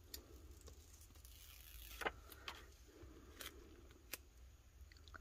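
Faint clicks and light crinkling of a vinyl decal sheet handled by fingers as it is lined up on a tumbler, over a low steady hum.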